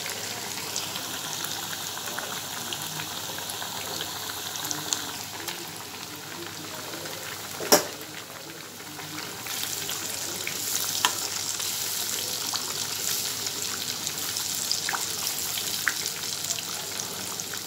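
Battered fish pieces deep-frying in hot oil: a steady sizzle with scattered crackles and pops, growing louder a little over halfway through. A single sharp click, the loudest sound, comes about halfway through.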